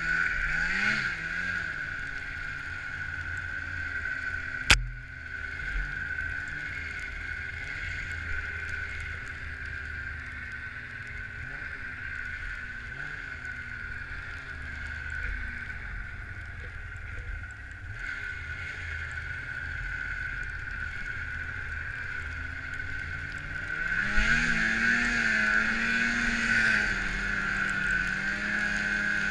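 Snowmobile engine running while riding through deep powder, its pitch rising and falling with the throttle. There is a sharp click about five seconds in, and near the end the engine revs up and gets louder.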